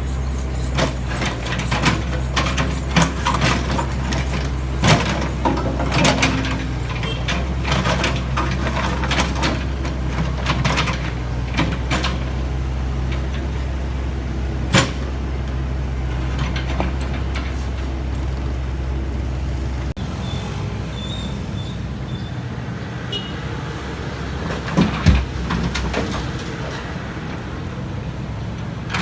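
Heavy construction machinery at work: a diesel engine running steadily, with frequent sharp knocks and clanks over roughly the first fifteen seconds. About twenty seconds in, the low engine hum stops abruptly and lighter vehicle noise remains, with a few knocks near the end.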